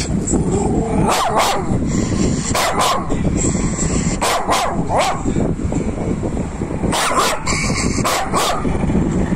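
Miniature pinscher barking: about eleven sharp, short barks, mostly in quick pairs, with a pause of a second or so in the middle.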